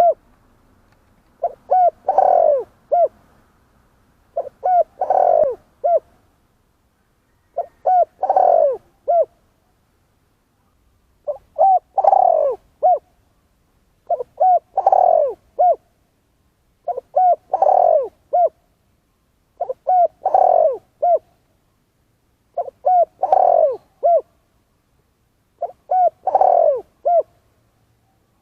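Spotted dove cooing. Each phrase is a few short coos, then one longer, louder coo and a short final note. The phrase is repeated about every three seconds, nine times.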